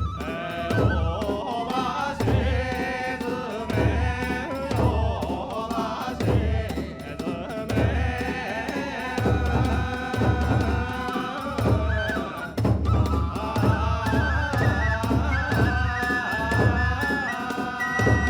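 Hiroshima kagura accompaniment music: a taiko drum beating a steady, driving pattern beneath a high transverse-flute melody.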